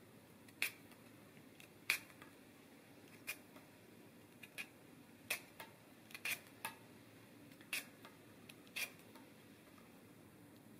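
Metal vegetable peeler scraping strips of peel off a lemon: about ten short, sharp strokes, roughly one a second.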